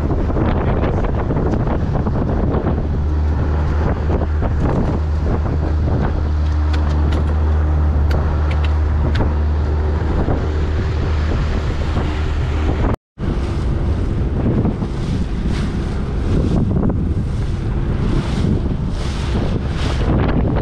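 Evinrude 60 hp outboard motor running at speed with a steady drone, under wind buffeting the microphone and water rushing past the hull. The sound cuts out for an instant about two-thirds of the way in, then the wind noise is stronger.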